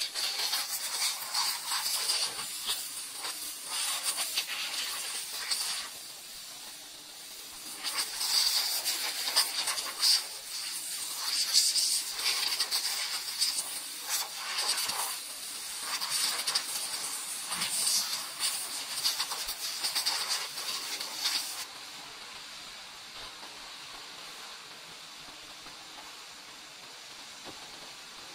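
A high-pressure car-wash spray gun hissing in long bursts with short breaks as it is played over the car's glass and bodywork. It stops about three-quarters of the way through, leaving only a faint steady background noise.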